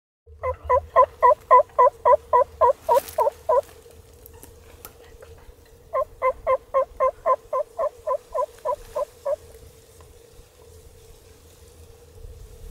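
Turkey yelps: two runs of about a dozen evenly spaced notes, about four a second, with a pause of a couple of seconds between them. A faint steady hum runs underneath.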